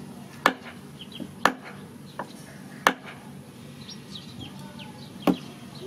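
Cleaver chopping raw chicken feet on a wooden chopping block: four sharp chops at uneven intervals, with two lighter strikes between the first three.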